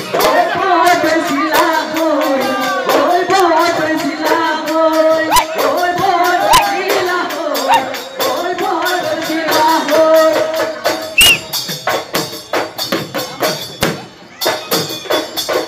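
Live Bihu folk music: dhol drums beating a fast rhythm with jingling percussion, and a voice singing over it. Over roughly the last four seconds the singing drops away and the drums carry on.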